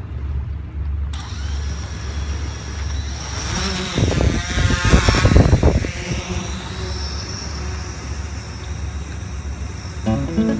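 Yuneec Typhoon H hexacopter's electric motors spinning up about a second in, with a louder rush of air for about two seconds around liftoff, then a steady hum and whine as it climbs away. Guitar music comes in near the end.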